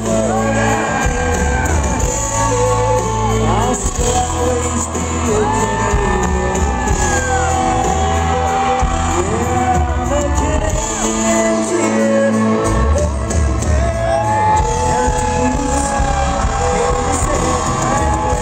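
Live country band playing, with singing in long held notes over a steady bass and drum beat.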